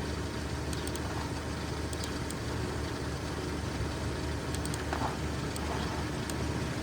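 Car engine idling steadily and roughly, misfiring: cylinders 2 and 3 are cutting out intermittently because the ignition coil's connector is cracked and loose inside.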